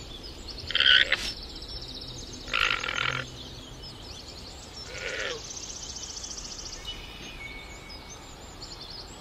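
Llama giving three short nasal calls, the first about a second in and the loudest, with faint bird chirps behind.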